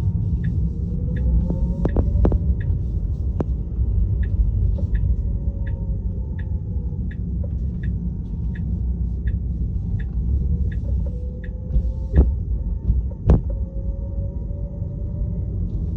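Tesla driving, with a steady low road rumble and a faint motor whine rising and falling in pitch. Over it are an even light ticking and several sharp thumps, the loudest about twelve and thirteen seconds in. The thumps are the thump-thump noise that appeared after the car's service visit.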